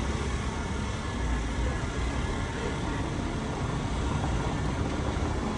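Steady city-street background noise: a low, unbroken rumble with no distinct events standing out.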